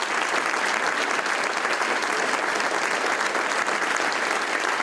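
A roomful of people giving a standing ovation: steady, dense applause with no break.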